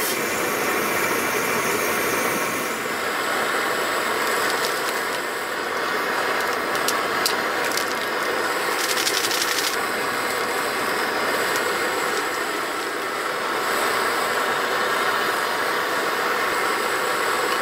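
Car on the move: a steady engine and road noise with light rattling, a few sharp clicks and a short burst of rapid ticking about nine seconds in.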